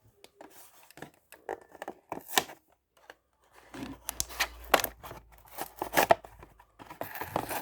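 A letter opener slitting open a toy car's cardboard-and-plastic blister pack: irregular scratchy cuts and tearing, coming thicker in the second half.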